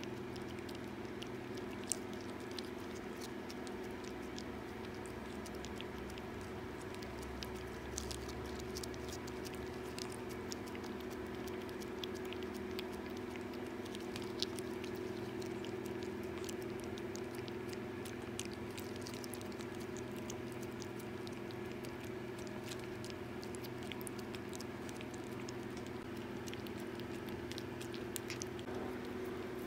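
A cat licking a lickable paste treat from a squeeze tube: many small, quick wet licking clicks over a steady low hum.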